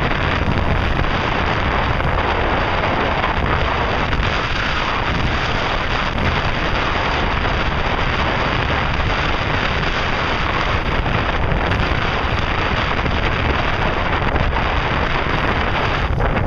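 Steady wind noise buffeting the microphone aboard a moving ferry, over a rush of water.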